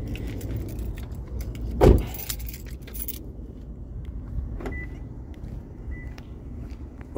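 A car door shut with a single heavy thump about two seconds in, amid keys jangling and clicking. Two faint short high beeps follow later.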